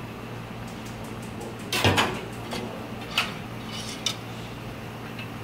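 Kitchen clatter: a few sharp clinks and knocks of pans or utensils, the loudest about two seconds in, over a steady low hum and hiss while carrots simmer in a saucepan on a gas burner.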